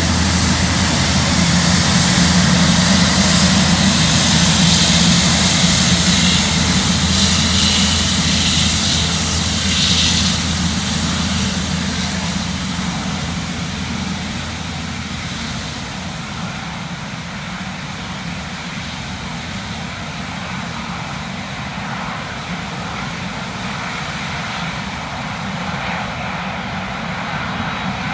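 Jet airliner engines at close range: loud engine noise that fades over the first dozen seconds, then settles to a quieter, steady engine noise.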